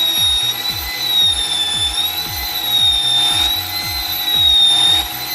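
Electric hand drill rigged as a water-well drill, running steadily under load while boring, with a high motor whine that wavers slightly in pitch. Background music with a repeating beat plays underneath.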